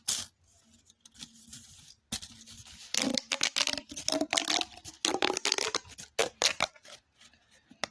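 Big red plastic pop tube being pulled open and pushed shut, its ribbed folds crackling in rapid clicks in several bursts from about three seconds in, sounding as if there were beads inside.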